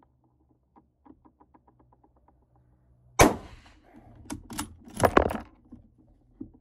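A 1938 Mosin-Nagant bolt-action rifle fires one shot about three seconds in: a single sharp crack with a short ringing tail. About a second later comes a quick run of metallic clicks and clacks as the bolt is worked to eject the case and chamber the next round.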